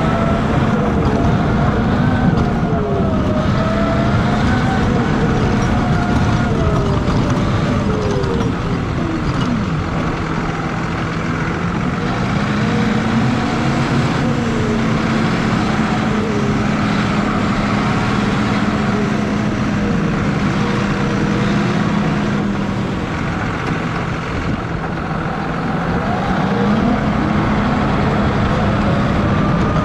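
John Deere 6155R tractor's six-cylinder diesel engine running steadily while pushing snow with a front plow. Its pitch drops and then climbs back twice, with the tractor slowing and picking up speed again.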